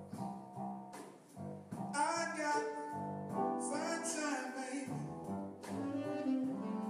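Background music: sustained instrumental notes that change every half second or so.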